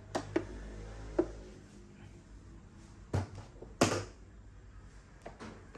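A few scattered knocks and clunks of plastic rice cookers being handled and set down. The two loudest come about three and four seconds in.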